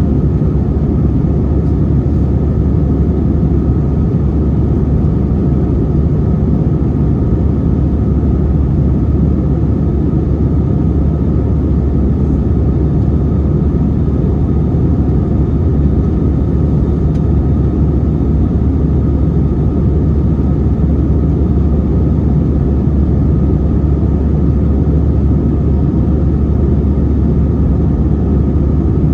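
Steady low rumble of an Airbus A321-200's CFM56 engines and airflow, heard from inside the passenger cabin. It holds constant, with no rise or fall in power.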